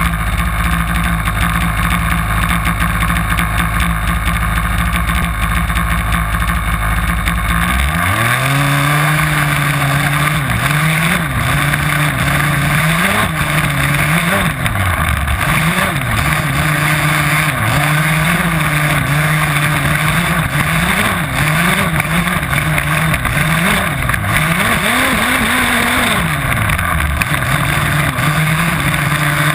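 HPI Baja 5B radio-controlled buggy's small two-stroke petrol engine, heard up close from a camera on the car: it idles steadily for about eight seconds, then revs up and drives off, its pitch rising and falling over and over as the throttle is worked.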